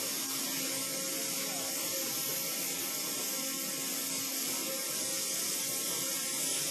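Steady high hiss of a 90,000 psi waterjet cutting stream, with a faint low hum beneath.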